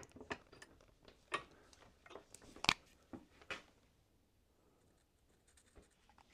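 A few faint, scattered clicks and taps of hands handling small tools at a workbench, among them a marker pen, with near silence for about a second and a half near the end.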